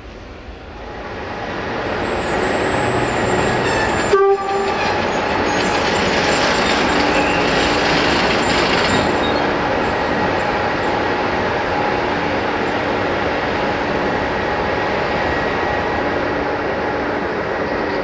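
CFR 060-EA (LE 5100 kW) electric locomotive running, its noise building over the first two seconds and then holding steady, with a short horn toot about four seconds in.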